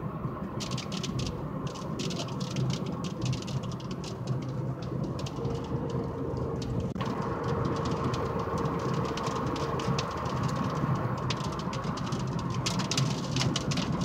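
Rain falling, with many sharp raindrop ticks close by over a steady low rumble; a faint steady tone sounds for a few seconds in the middle.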